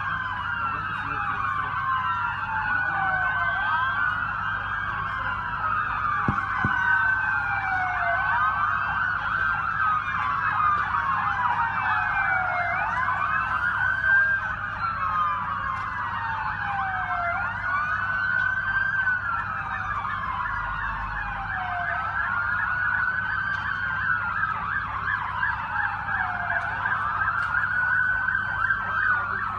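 Several emergency-vehicle sirens wailing at once, each sweeping slowly down and back up in pitch every few seconds, overlapping out of step with one another.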